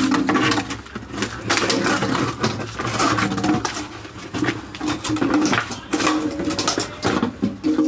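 Empty plastic water bottle crackling and clattering on concrete as a dog bites, paws and pushes it around, in a run of irregular crinkles and knocks.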